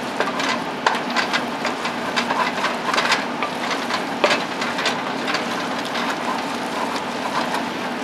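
Butter and bacon grease sizzling in a metal pot while a wooden spoon stirs flour and diced vegetables through it, with repeated scraping strokes of the spoon against the pot: a roux cooking on medium heat.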